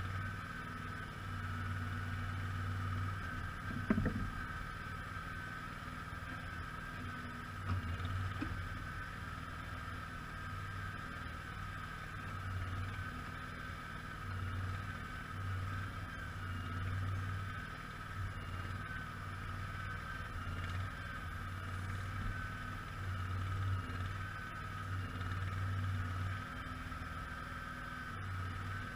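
Simplicity Legacy XL garden tractor's engine running steadily, its low rumble cutting in and out every second or two. There is a single knock about four seconds in.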